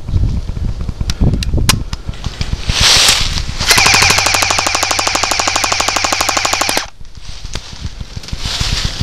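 Airsoft gun firing one long full-auto burst of about three seconds, a fast even rattle of shots that cuts off suddenly. A couple of single sharp clicks come before it, about a second and a half in.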